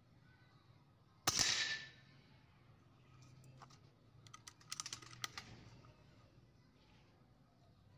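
PCP air rifle (a P15) firing a single shot: one sharp crack about a second in that dies away within half a second. A couple of seconds later comes a run of light clicks from handling the rifle.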